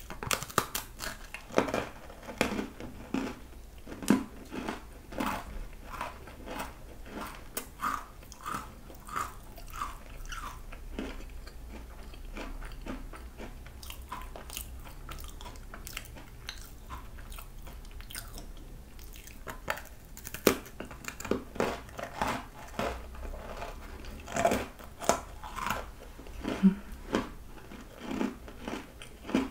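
Close-miked biting and chewing of a crisp butter cookie: a run of sharp crunches that thin out in the middle and pick up again about two-thirds of the way through.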